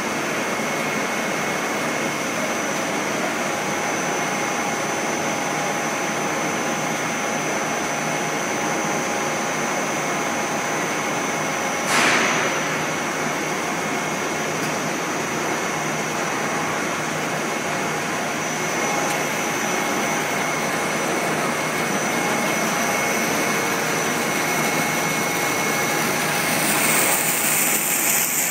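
Food extruder production line running: a steady machine drone with thin high whining tones and one sharp clack about twelve seconds in. Near the end a hiss of escaping steam rises as the hot extruded rope comes out of the die.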